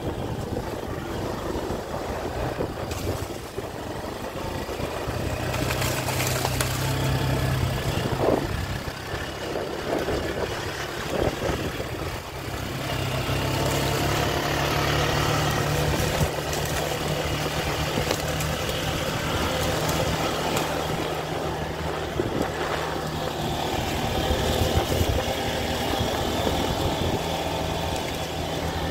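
Minsk X250 enduro motorcycle's single-cylinder engine running while riding, with a steady engine note that grows a little louder about halfway through.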